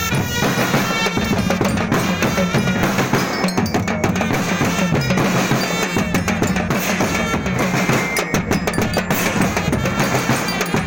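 Loud percussion-driven music, with drums and other struck percussion keeping a continuous beat.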